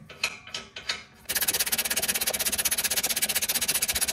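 Ratchet wrench clicking in a fast, even run for about three seconds, starting a little over a second in, as a bolt through the steel trailer-tongue tube is run down.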